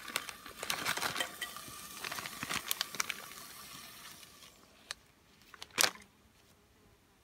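Frozen raspberries tumbling from a paper packet into a stainless steel pot, with the packet crinkling and rustling. The rustling dies away after about four seconds, and a single sharp click follows near the end.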